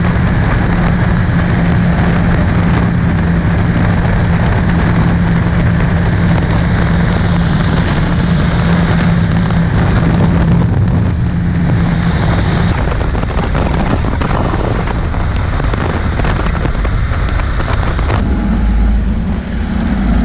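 Kawasaki KLR650 single-cylinder motorcycle cruising at road speed: the engine runs steadily under heavy wind rush on the microphone. The sound changes abruptly twice, about 13 and 18 seconds in.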